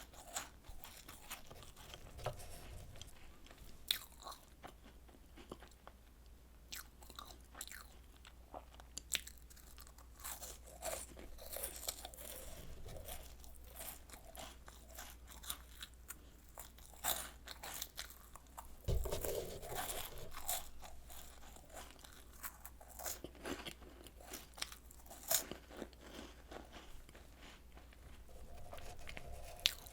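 Close-up chewing and crunching of Home Run Ball, small round chocolate-cream-filled puff biscuits made extra crisp by air-frying, with many short, sharp crackles as they break between the teeth. There is a single low thump about two-thirds of the way through.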